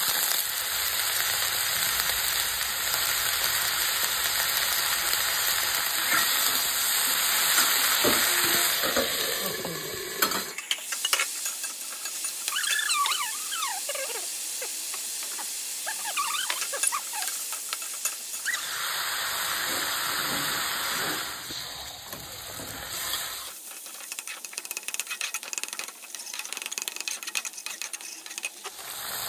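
Cauliflower and potato pieces frying in oil in a metal pan: a steady sizzle that breaks off about a third of the way in and returns for a few seconds later, in between giving way to a spatula stirring and scraping against the pan with short squeaks and clicks.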